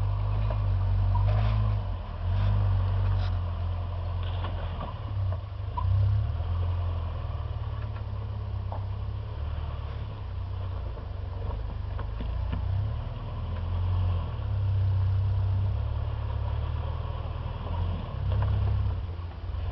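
Motor vehicle engine idling with a deep low rumble that swells and eases off every few seconds.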